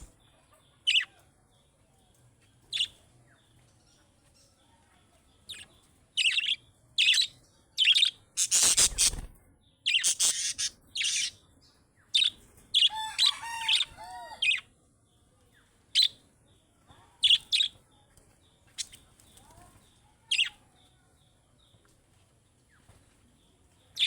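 Pet budgerigars calling: short sharp chirps at irregular intervals with quiet gaps between, a louder harsh call about nine seconds in, and a brief run of warbling chatter around thirteen to fourteen seconds.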